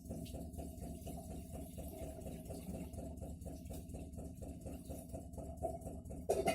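Atlant refrigerator knocking fast and evenly, about six knocks a second over a low hum, with two louder knocks near the end. This is the knocking fault the owner reports, which persists even with the fridge on a voltage stabiliser.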